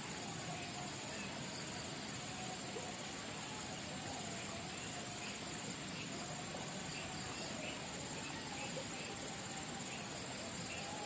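Insects trilling steadily in a high, continuous chirr over a faint, even background hiss, with a few small scattered chirps.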